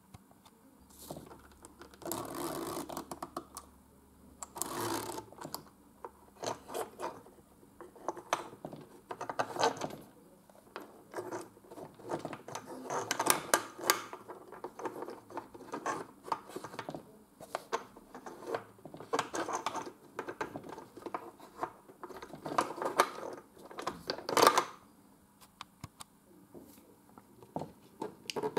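A wooden children's busy board being worked by hand: wooden discs slid along the slotted maze tracks in its panel, giving irregular scrapes, clicks and knocks.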